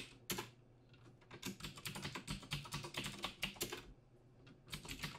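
Typing on a computer keyboard: two single keystrokes at the start, a quick run of keystrokes from about a second and a half in that lasts a couple of seconds, then a few more keys near the end.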